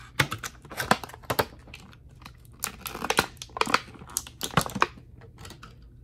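Clear plastic packaging bag crinkling as a replacement laptop battery is pulled out of it: a run of irregular sharp crackles, loudest in the middle.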